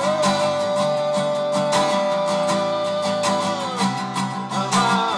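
Background music led by strummed acoustic guitar with a steady beat, and one long held note from the start until nearly four seconds in.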